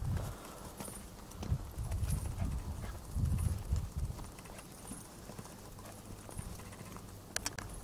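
Footsteps of someone walking on a paved street, heard as uneven low thumps, loudest in the first half. A few sharp clicks come near the end.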